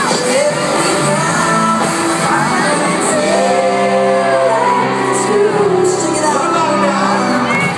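Live pop-rock band playing with male lead vocals, recorded from far back in the audience of a large concert venue.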